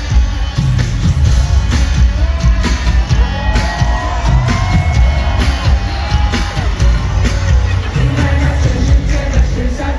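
Live pop concert music: a loud, bass-heavy dance beat with singing that glides up and down through the middle, and some shouting from the crowd.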